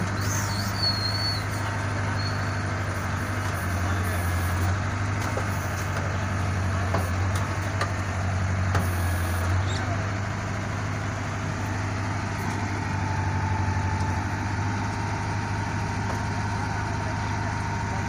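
Backhoe loader's diesel engine running steadily while the backhoe arm digs soil, its note swelling slightly a few times as the arm works, with a few faint clanks.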